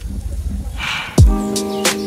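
Background music: a short swish, then about a second in a deep kick drum lands under a held synth chord, with sharp hi-hat-like ticks.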